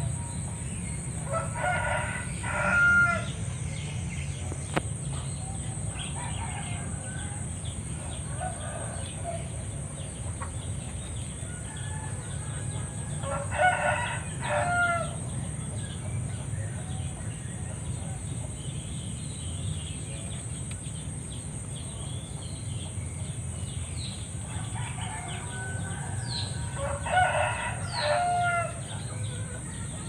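A rooster crowing three times, about twelve seconds apart, over a steady low rumble, with faint small-bird chirps in between.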